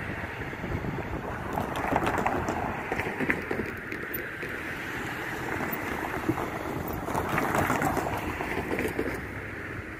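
Wind buffeting the microphone over outdoor noise, with a car driving across the railroad grade crossing near the end, its tyres clattering over the crossing panels.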